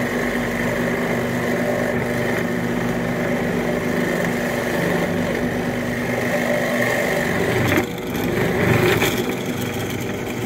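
Mastercraft benchtop drill press running with a steady motor hum while its bit cuts into a wooden stool seat. About eight seconds in the sound breaks briefly and turns louder and rougher as the bit bites into the wood.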